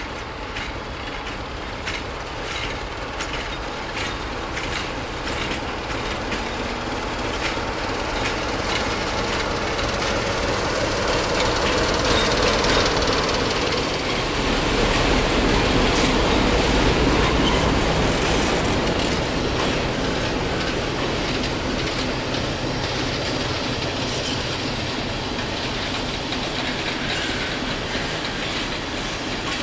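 Railway passenger coaches rolling past close by, their wheels clacking over rail joints in a run of clicks. The rolling noise grows louder toward the middle, then eases off.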